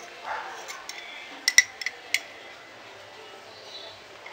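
Glass clinking: four sharp, ringing clinks in quick succession about a second and a half in, the first two the loudest.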